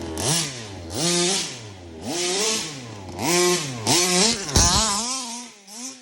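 Small two-stroke gas engine of a Rovan 1/5-scale RC vehicle revved in short throttle blips, its pitch rising and falling about six times, once a second or so.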